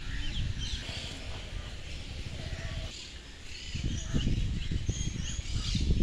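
Birds chirping and calling, with many short high chirps throughout and one lower wavering call about two and a half seconds in, over a steady low rumble.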